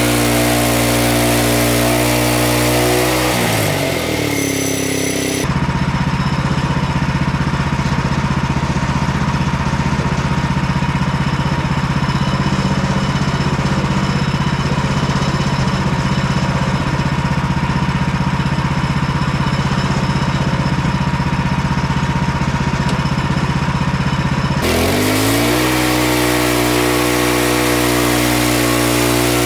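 Portable bandsaw sawmill's gasoline engine at high revs under load, dropping to idle a few seconds in and running steadily there, then revving back up near the end as the next cut begins.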